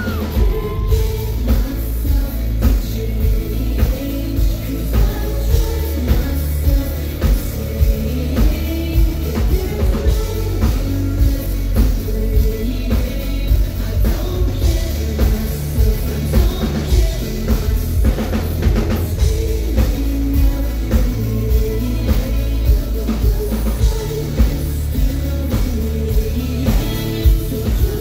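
Live pop music: a singer singing into a handheld microphone over an amplified backing track with heavy bass and a steady beat, heard from the audience.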